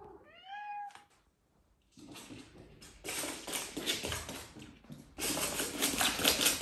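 A cat gives one meow, rising then falling in pitch. From about two seconds in comes a rapid clatter of its paws scrabbling and running on a hard floor, loudest near the end as it dashes.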